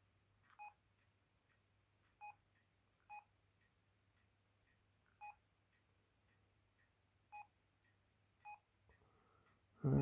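Sendo S330 mobile phone keypad beeping as its navigation keys are pressed to scroll through the menus: six short, identical electronic key tones, irregularly spaced a second or two apart.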